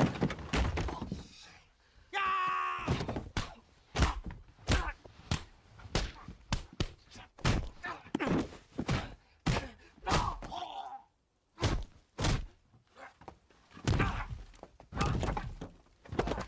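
Brawl sound effects: a rapid, irregular series of punches, body blows and thuds against furniture and walls, with grunts and a drawn-out yell about two seconds in. The blows stop for about a second past the middle, then resume.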